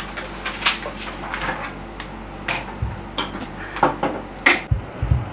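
Paper sheets and a ceramic coffee mug being handled on a tabletop: scattered light clicks, knocks and rustles, with a few dull thumps near the end.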